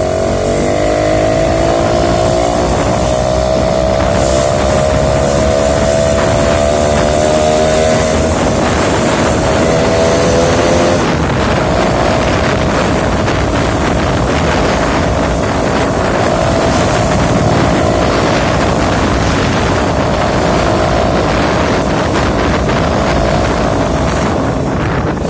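Suzuki Tornado motorcycle engine under way, pitch rising steadily as it accelerates. About 11 s in there is a break, likely a gear change, and then it runs at a steady pitch while cruising, with wind buffeting the microphone.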